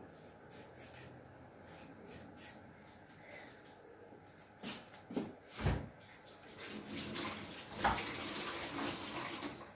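Kitchen tap running for a couple of seconds near the end, after a few knocks and a dull thud from things being handled.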